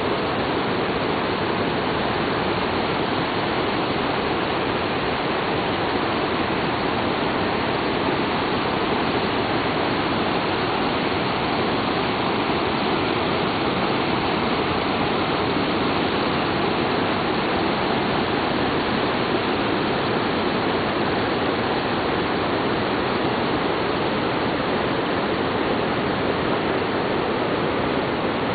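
Merced River rushing over boulder rapids: a steady, even rush of water that does not change.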